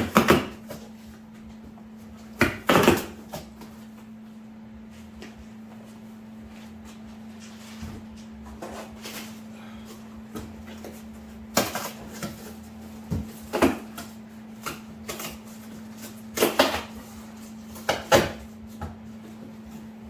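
Irregular knocks and clunks of heavy steel rear leaf springs being taken out of their box and handled, with a steady low hum underneath.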